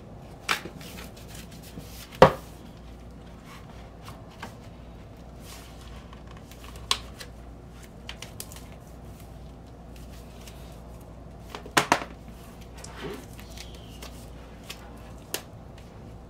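Cardboard vinyl-record mailer being opened and handled, with a shrink-wrapped LP taken out: scattered rustles, taps and knocks. The sharpest knock comes about two seconds in, and a quick double knock near twelve seconds.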